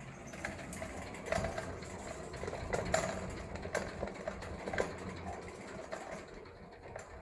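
Chinchilla's exercise wheel spinning as the chinchilla runs in it: a steady rumble with a few sharper knocks at uneven intervals.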